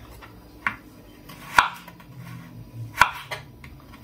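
Kitchen knife cutting a carrot into sticks on a cutting board: four separate unhurried cuts, each a short crunch through the carrot ending in a sharp knock of the blade on the board.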